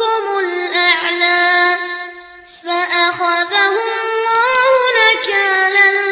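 Music with a high voice singing a melody, with a short break between phrases about two seconds in.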